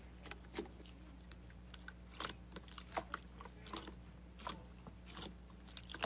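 Slime being squeezed and worked by hand, giving irregular faint crackling clicks and small pops.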